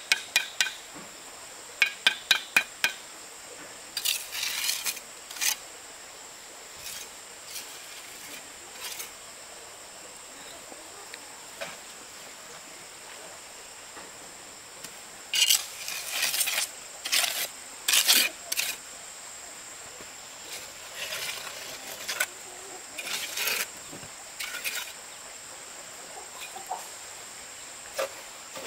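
Intermittent handling noises: a few sharp, ringing clinks near the start, then short bursts of scraping and rustling, over a steady high-pitched insect drone.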